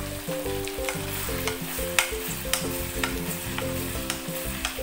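Sausage and vegetable stir-fry sizzling in sauce in a wok while a wooden spatula stirs it, with repeated scrapes and light taps of the spatula against the pan.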